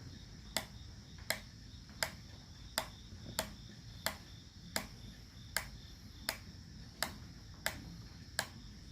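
Pittsburgh Pro 3/8-inch drive 72-tooth flex head ratchet clicking slowly and evenly, about one sharp click every 0.7 seconds, as the handle is dragged backwards against its pawl: the freewheel backdrag being measured.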